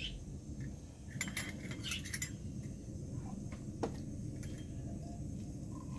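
Metal camping cookware clinking: a cluster of light clinks about a second in and one sharper knock near four seconds as a steel cup and pan gripper are handled, over a steady low rush from a gas canister stove burner.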